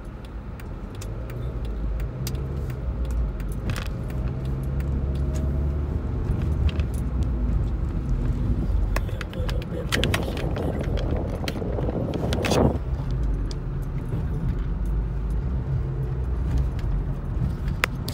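Car cabin sound as the car pulls away and drives in city traffic: a steady low engine and road rumble, with scattered light clicks and rattles inside the car. A brief rising sweep stops abruptly about two-thirds of the way through.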